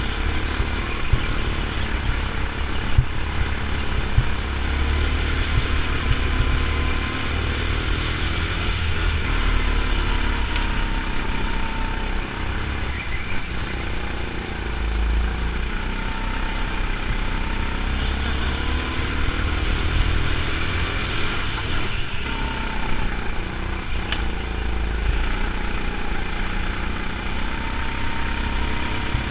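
Go-kart running flat out from the driver's seat, its pitch rising and falling over and over as it speeds up on the straights and slows for the corners, with wind rumbling on the microphone.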